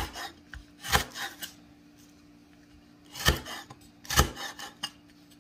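Cleaver chopping through fibrous lemongrass stalks on a wooden cutting board: a few sharp cuts at uneven intervals, each a crunch through the stalk and a knock of the blade on the board.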